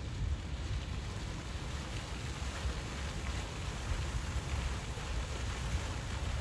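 Outdoor fountain jet in a pool spraying and splashing steadily, heard as an even hiss, under a fluctuating low rumble of wind buffeting the microphone.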